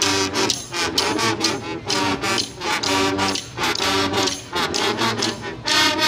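Guggenmusik carnival band playing: brass and trombones in short, repeated phrases over bass drum, drum kit and cymbal strokes.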